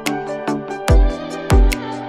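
Background music with a steady beat: a deep kick drum, crisp high percussion clicks and sustained chords.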